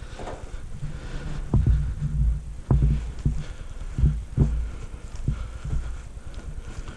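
Heavy, irregular thumps of footsteps and handled gear, about five louder ones, over a steady low rustle of movement.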